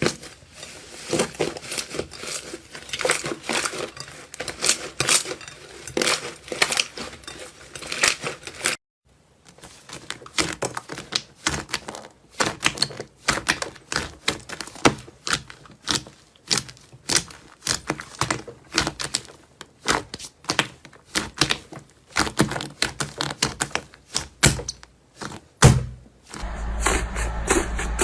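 Slime being squeezed and pressed by hand, making rapid crackling and popping clicks as trapped air bursts. The clicks stop for a moment about nine seconds in, and near the end a steady low hum sits under them.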